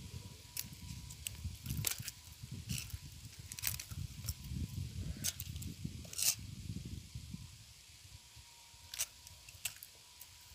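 Scattered sharp metallic clicks and rustles as fishing pliers work the hooks of a lure free from a caught fish, over a low rumble on the microphone that fades out about three-quarters of the way through.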